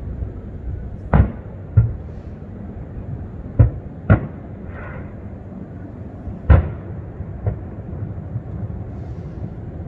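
Aerial firework shells bursting: about six sharp booms at uneven intervals, the louder ones with a short echoing tail, over a steady low background rumble.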